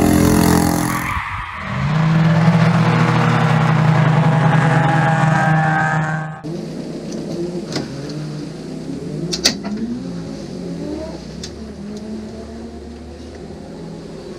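Racing kart engine at high revs, dipping briefly about a second and a half in, then holding a steady high note. About six seconds in it cuts to a race car's engine heard from inside the cabin, idling with its revs rising and falling, and a few sharp clicks.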